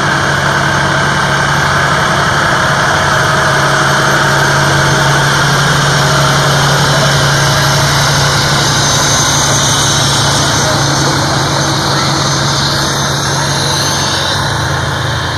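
Fire engine's diesel engine running as the truck drives slowly past close by: a loud, steady low hum with no siren.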